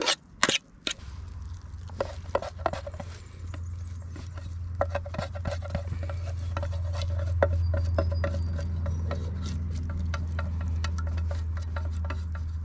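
A metal utensil clinking and scraping against an aluminium mess tin and a steel plate as noodles are stirred and scraped out onto the plate, with a few sharper clanks at the start. A steady low rumble runs underneath from about a second in.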